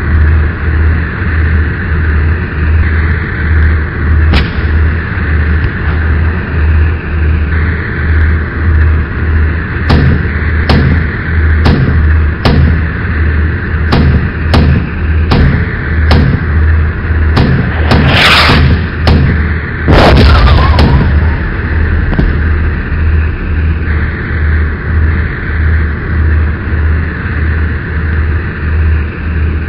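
Battleship sound-effect mix for an RC model Bismarck: a pulsing low ship-engine drone with a steady hiss, about two pulses a second. A run of sharp gunshots, about one every second or less, falls in the middle, then two heavy cannon blasts about two seconds apart, each with a ringing tail.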